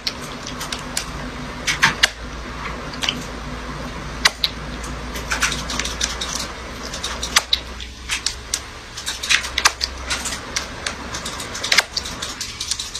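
Cat purring close to the microphone: a steady low rumble with irregular sharp clicks, several a second.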